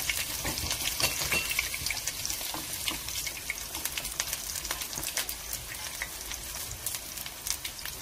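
Mung bean pancake frying in oil in a frying pan: a steady sizzle with frequent small crackles and pops.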